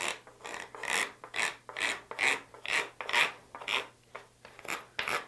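A wooden stick is rubbed in short strokes across the ties of Micro Engineering weathered code 70 HO flex track, making a rasping scrape about twice a second, with a brief pause about four seconds in. The strokes push the ties over so that the track bends into a curve.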